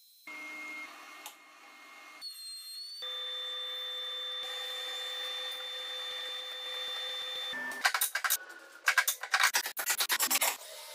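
Woodshop machine and tool sounds in quick cuts: a steady saw whine through the middle, then a loud burst of rapid clicking and rattling near the end as bar clamps are slid and tightened on a glue-up.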